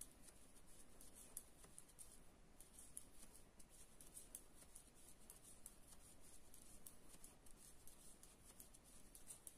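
Faint, irregular clicking and rustling of knitting needles and wool yarn being worked by hand, over near-silent room tone.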